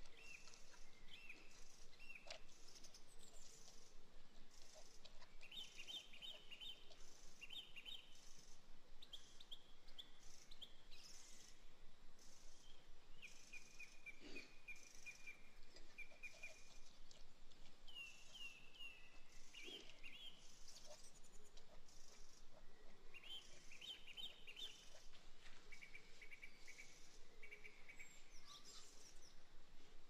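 Small songbirds singing short chirping and trilling phrases, one after another every second or two. A few soft clicks of a fork against a metal pan come between them.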